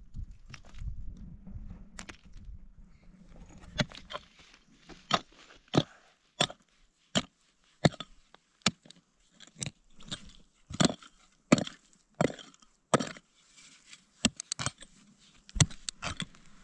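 A hand tool striking wood again and again, sharp separate blows coming about one to two a second in an uneven rhythm.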